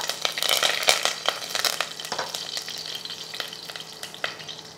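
A tadka frying in hot oil: mustard seeds, cumin seeds and curry leaves sizzling with many sharp crackling pops, thickest in the first couple of seconds.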